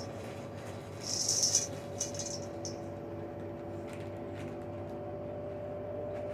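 LG washing machine on its cotton spin cycle, the motor whining on a steady pitch that creeps slightly higher near the end as the drum holds high spin speed. A short burst of rattling clatter comes about a second in.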